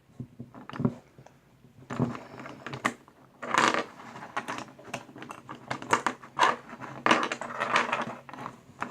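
Plastic Rubik's cube pieces clicking and rattling as they are handled and fitted back into the cube: a run of irregular light clicks.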